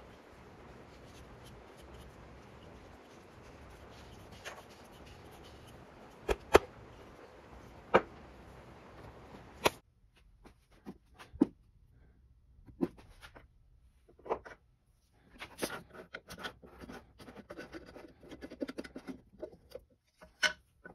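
Workbench handling noise: sharp clicks and light knocks as a wooden handle and tools are picked up and set down on a wooden bench. Over a faint steady hiss there are a few single clicks, then after the hiss drops away a scattering of knocks, a busier cluster of them and one loud click near the end.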